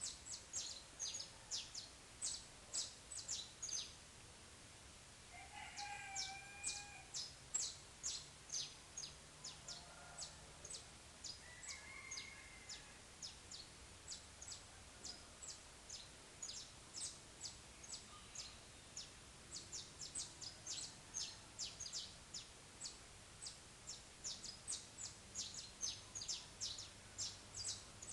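Saffron finch singing a long run of sharp, high chips, several a second, with a short break about four seconds in. A lower, drawn-out call sounds underneath about six seconds in and again around twelve seconds.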